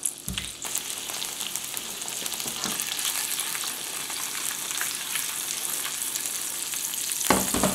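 Boiled salt potato pieces frying in hot oil and butter in a frying pan, a steady sizzle as the pan is shaken to move them about. A short low thump comes about half a second in and another near the end.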